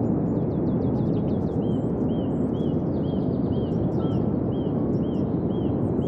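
A steady rush of breaking surf, with a small songbird calling over it. The bird gives a quick run of falling notes, then a short rising-and-falling chirp repeated about twice a second.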